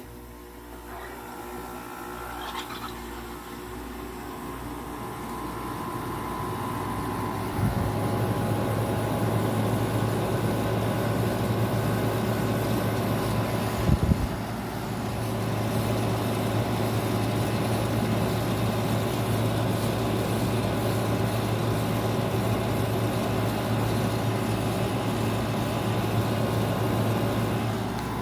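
General Electric 5,150 BTU window air conditioner switched on: the fan's airflow builds over several seconds, then about eight seconds in its LG compressor kicks in with a thump and a steady low hum. A short knock comes about six seconds later, and the compressor runs on with a sound the owner thinks might mean a lubrication issue.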